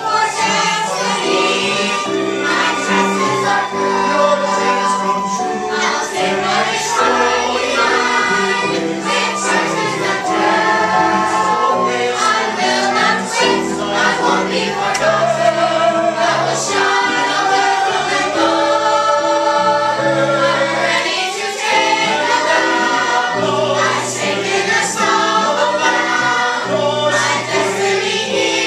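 A group of voices singing together in chorus, with instrumental accompaniment.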